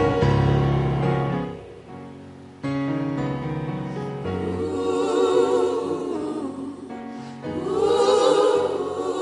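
Choral music: voices holding long chords with vibrato. It drops back briefly about two seconds in, then swells twice, the second time near the end.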